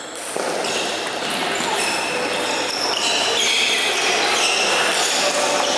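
Busy table tennis hall din: celluloid balls clicking on bats and tables from many games at once, with many short high-pitched squeaks over a steady wash of hall noise.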